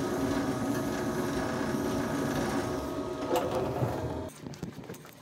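Steady mechanical hum of building machinery with several held tones, cutting off suddenly about four seconds in; a few faint clicks and taps follow.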